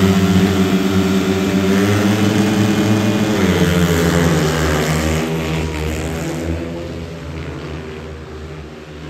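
Four speedway bikes' 500cc single-cylinder methanol engines revving hard at the start gate, then dropping in pitch about three and a half seconds in as the pack leaves the gate, and fading as the bikes race away down the track.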